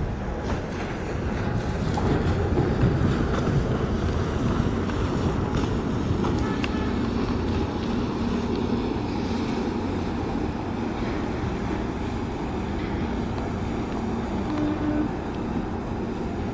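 Steady low rumble of a large container ship under way, with a faint hum coming and going in the middle.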